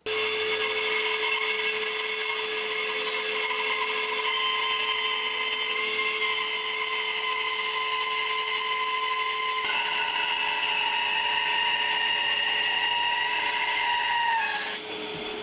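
Bandsaw running and cutting through a thick slab of wood: a steady whine with several tones over a rushing noise. The pitch shifts slightly a couple of times and dips briefly near the end.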